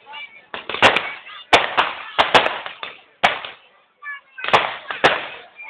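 Firecrackers packed into a burning Ravan effigy going off in an irregular string of about eight sharp bangs, some in quick pairs, each with a short echoing tail.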